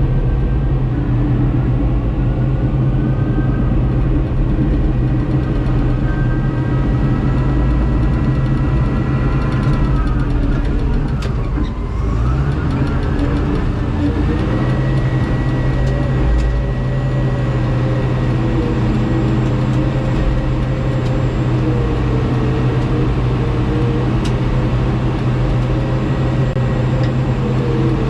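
Heavy diesel engine of a bulldozer or tractor running steadily. Its pitch sags about ten seconds in and climbs back a few seconds later.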